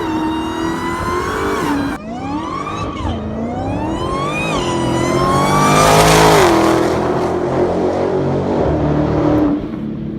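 Dodge Demon's supercharged V8 revving up and down, with a high supercharger whistle rising and falling with the revs. It builds to its loudest about six seconds in, then falls back.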